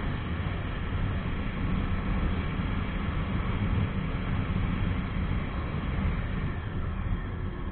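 Wind rushing over the action camera's microphone on a moving Jawa 42 motorcycle, mixed with engine and road noise in a steady low rumble.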